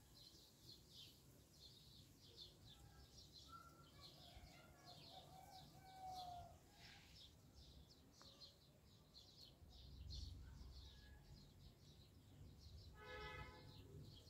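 Faint, rapid chirping of small birds, short chirps repeating several times a second, with a short pitched call near the end.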